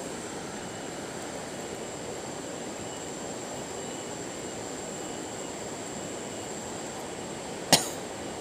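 Steady rushing noise of a flowing river, with a thin high whine throughout and one sharp click near the end.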